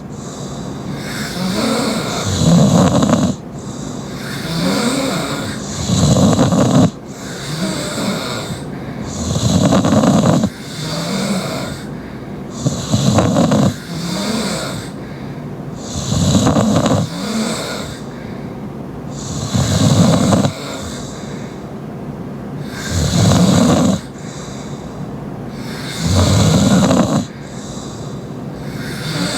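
A sleeping young woman snoring loudly through an open mouth. About eight loud snores come one every three to three and a half seconds, with quieter breathing between them.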